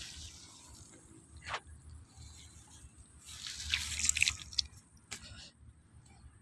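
Wet mud and water squelching and dripping at a flooded eel burrow in paddy mud, mostly faint. There is a louder splashy stretch from about three to four and a half seconds in, and a few sharp clicks.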